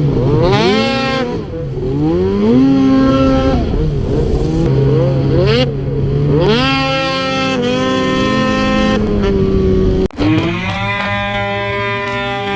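Two-stroke snowmobile engines revving, their pitch repeatedly rising, holding and falling. About ten seconds in, the sound cuts off abruptly and music with sustained notes begins.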